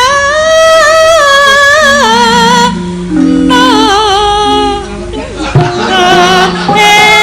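A sinden, a female Javanese singer, singing long held notes that waver and step up and down, over Javanese gamelan accompaniment.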